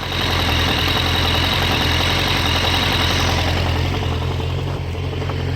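1998 Suzuki Bandit 1200's inline-four engine idling warm with a knocking sound, heard close up by the valve cover.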